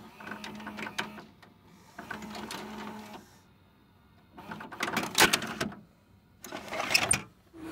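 Typing sound effect: rapid keystroke clicking in four short bursts with pauses between them, the last two louder.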